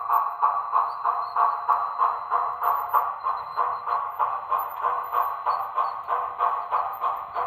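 Sound decoder (Tsunami 2) in an On3 model steam locomotive playing steady exhaust chuffs through the model's small speaker, about three to four chuffs a second as the train runs.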